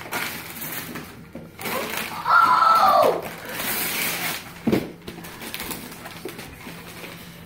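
Wrapping paper and cardboard boxes rustling and tearing as presents are unwrapped. About two seconds in, a child's high voice rings out once, sliding down in pitch, and a single thump follows a couple of seconds later.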